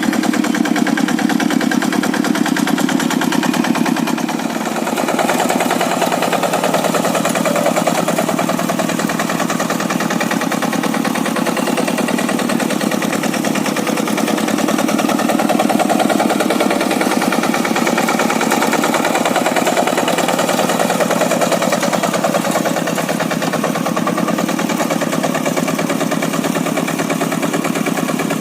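Single-cylinder Kubota diesel engine of a Quick G100 two-wheel hand tractor running steadily with a rapid chugging beat while working hard soil, dipping briefly about four seconds in.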